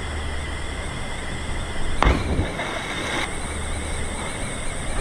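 Steady rush of falling water, with a loud splash about two seconds in as a jumper hits the waterhole, the churned water hissing for about a second after.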